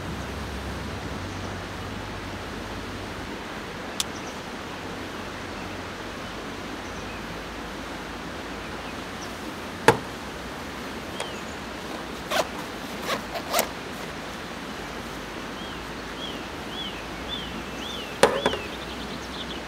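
Metal cookware being handled on a camp table and canister gas stove: a steel mug, a metal container and a small steel pot set down and moved, giving several sharp clinks and knocks, the loudest about ten seconds in and another pair as the pot goes onto the stove near the end. Under them a steady hiss, and from about three-quarters of the way through a bird calls a quick run of short rising-and-falling notes.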